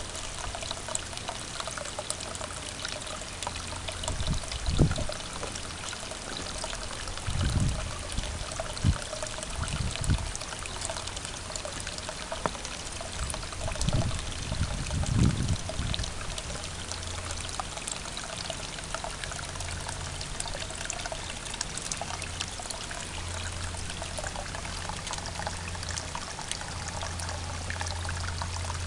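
Water from a garden hose running steadily into a plastic tub, with a few low thumps in the first half.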